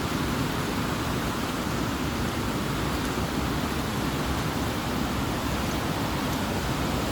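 Waterfall, water rushing down the falls in a steady, even hiss.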